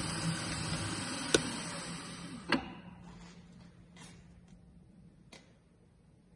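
Milling machine running with a steady hum and hiss, switched off with a sharp click about two and a half seconds in. A few faint clicks follow in the quiet.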